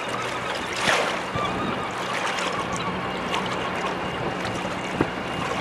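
Sea washing against jetty rocks, with wind, over a steady low drone from the departing MV Normandie ferry's diesel engines. A wave surges louder about a second in.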